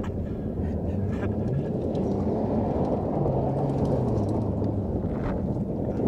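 Toyota Tacoma i-FORCE MAX hybrid's 2.4-litre four-cylinder engine running as the pickup drives fast over loose dirt and gravel. Its note rises about three seconds in and then falls, over steady tyre and gravel noise.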